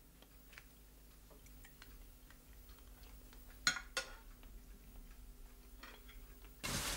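Quiet room with faint scattered ticks and two sharper clicks a little past the middle, like light crockery or cutlery knocks. Near the end a louder hiss of outdoor noise cuts in suddenly.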